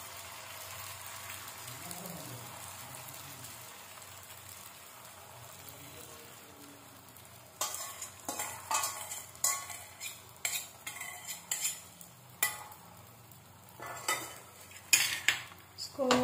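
Masala omelette batter frying in hot mustard oil on a tawa, a steady sizzle. About halfway in a spoon starts scraping and tapping against the tawa again and again as the batter is spread out.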